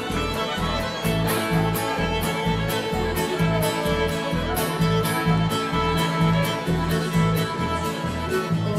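Live bluegrass band playing an instrumental break of an old-time fiddle tune: fiddles carry the melody over a steady upright-bass beat with guitar and mandolin strumming the rhythm.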